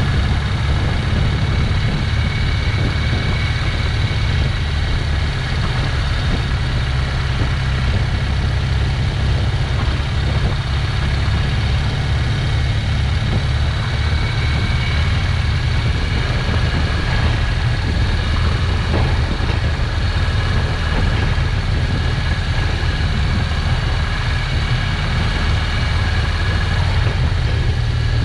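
Motorcycle ridden at steady low speed, its engine running evenly under a heavy low rumble of wind on the microphone.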